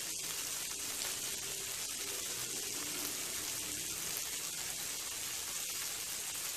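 Onion, okra and tomato pieces sizzling in a little oil in a stainless steel kadai over medium heat: a soft, steady frying hiss.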